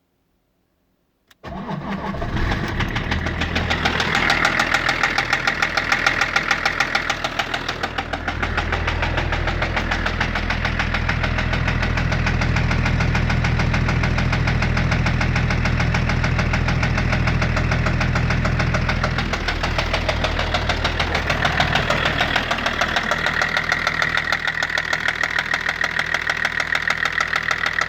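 BMW M51D25 2.5-litre straight-six turbodiesel engine, which comes in suddenly about a second in and then runs steadily at idle. It is running with a knock whose cause the owner doesn't know.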